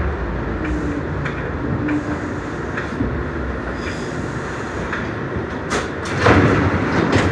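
Interior ride noise of an R62A New York City subway car running slowly: a steady rumble with wheels clicking over rail joints roughly once a second, then a louder rushing hiss about six seconds in.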